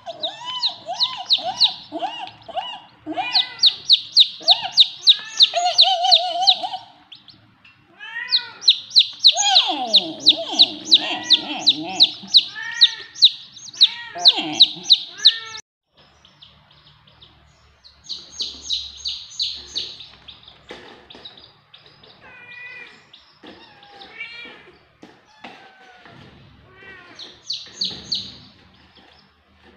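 Chicks peeping rapidly and insistently, runs of short high peeps at about four a second. The peeping is loud for the first half, then quieter and more broken up.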